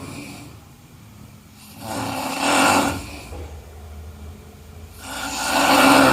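A person snoring in a steady rhythm: two snores about three seconds apart, each swelling over a second or so to a peak.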